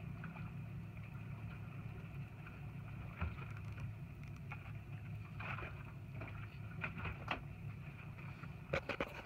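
Boat engine idling steadily, with scattered light knocks and clicks.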